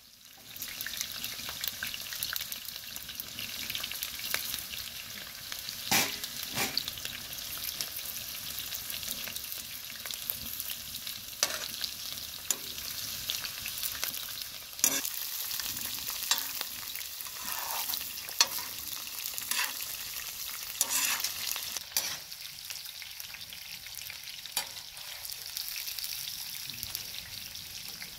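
Food frying and sizzling in a hot pan, a steady hiss, with a utensil stirring and now and then knocking or scraping against the pan.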